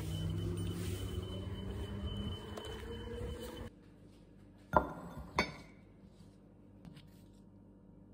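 A vehicle engine running with a steady hum, which cuts off abruptly a few seconds in; then in a quiet room, two sharp clinks of crockery on a countertop about half a second apart.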